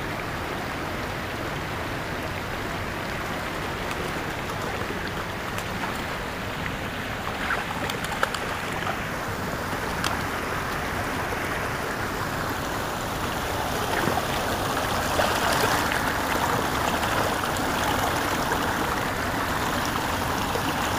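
Small rocky stream rushing and burbling over stones, a steady noise of running water that grows louder in the second half. A few short clicks sound through the middle.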